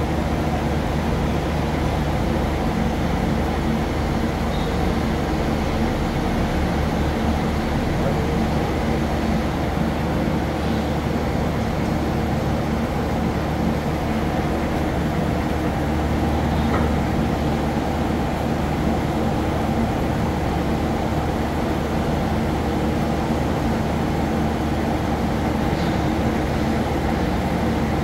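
Large CNC single-column vertical turret lathe running, a steady mechanical hum with a low drone that holds the same level throughout.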